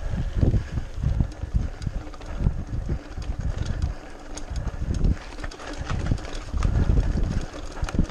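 Mountain bike rattling over cobblestones: irregular knocks and clatter from the wheels and frame, with heavy low thuds as the tyres hit the bigger stones.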